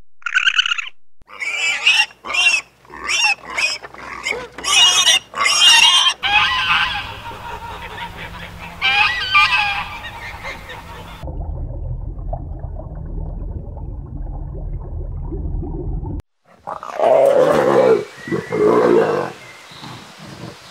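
Different animal calls one after another: a quick series of sharp cries, then geese honking, then a steady low rumble, and a deep growling call near the end.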